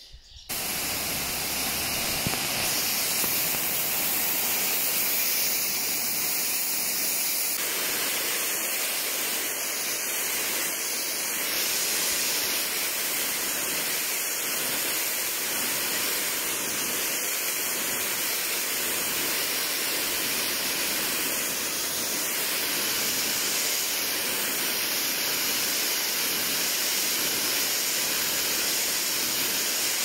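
Electric pressure washer's jet of water blasting a wet concrete yard: a steady hiss of spray hitting concrete, starting about half a second in.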